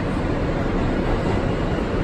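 R160 subway car running at speed, heard from inside the car: a steady running noise of the car and its wheels on the rails, even throughout with no distinct clicks or tones.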